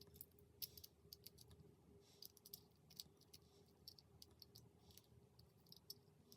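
Faint, irregular small clicks and taps of the iPod nano's plastic and metal parts being handled and fitted into its housing, over a faint steady hum.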